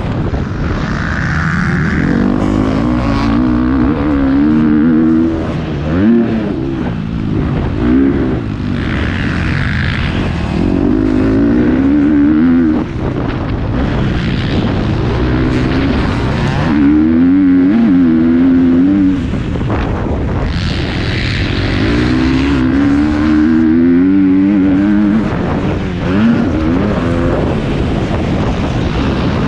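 Motocross bike engine heard from on board, revving up hard and backing off again and again, its pitch rising and falling with the throttle through the turns and straights.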